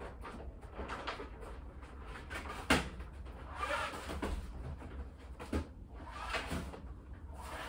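Scattered knocks and rustling from things being handled and set down, with two sharper knocks, one a little under 3 seconds in and one past the middle, over a steady low hum.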